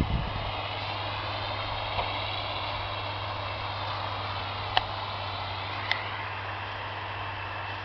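Tractor engine running steadily with a high whine over its low drone, during ploughing. A few sharp clicks break in, the clearest about halfway through and another about a second later.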